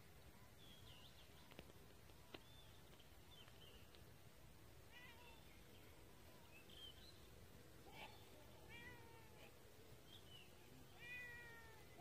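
Kittens mewing faintly: a scatter of short high-pitched mews, the loudest one about eleven seconds in. Two small clicks sound in the first few seconds.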